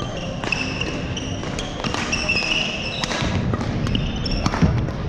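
Badminton rally on a hardwood gym court: several sharp racket strikes on the shuttlecock, and sneakers squeaking briefly and repeatedly on the wooden floor, in a large echoing hall.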